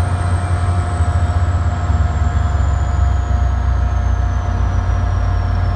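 Caltrain diesel locomotive engine running loudly and steadily, with a deep rumble and a faint high whine that slowly falls in pitch.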